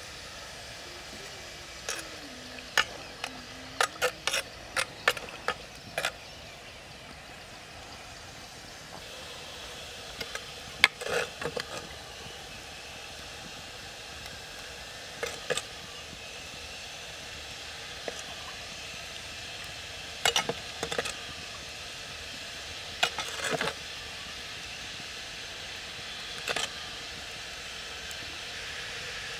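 Metal tongs clicking and tapping against a plastic plate as shredded cabbage is pushed off into a pot of boiling water, in a quick run of clicks near the start and then small groups every few seconds. A steady hiss sits underneath.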